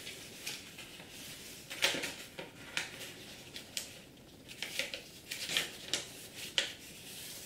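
A sheet of A4 paper being folded and creased by hand, the fold pressed flat with a fingernail: irregular crisp rustles and scrapes, about one a second.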